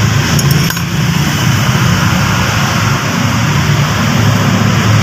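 Steady low drone of an idling engine, with a few light clicks about half a second in.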